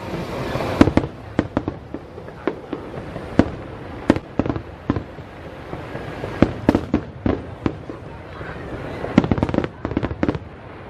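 Aerial fireworks shells bursting one after another: an irregular run of sharp bangs and pops over a steady background din, coming thickest near the end.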